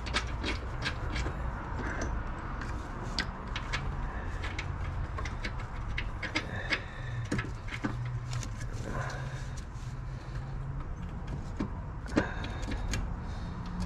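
Scattered light clicks and clinks of hands handling metal parts and bolts at a car's transmission mount, over a steady low background rumble.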